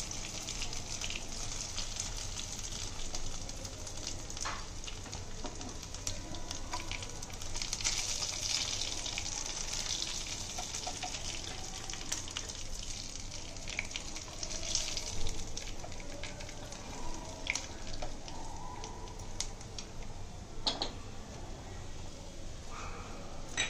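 Barramundi pieces shallow-frying in hot oil and spices in a nonstick pan, a steady sizzle, with a few light taps and scrapes of a spatula against the pan as the pieces are lifted out.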